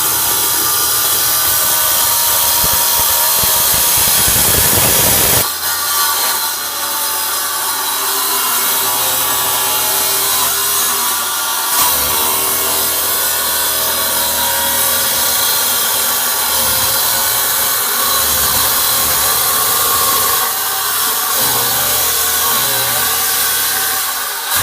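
A power tool working on metal, running continuously and loudly with a change in its sound about five and a half seconds in, then cutting off at the end.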